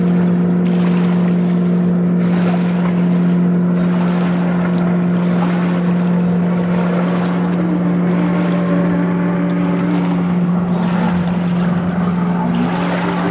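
Stand-up jet ski engine running at a steady high note while it carves turns, with water spray hissing under it. A second, shifting note rises near the end.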